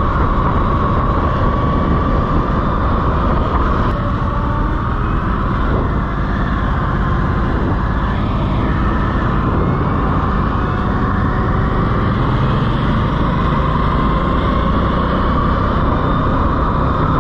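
Wind rushing over the microphone on a moving Harley-Davidson LiveWire electric motorcycle, with the steady high whine of its electric drive on top, drifting slightly up and down in pitch.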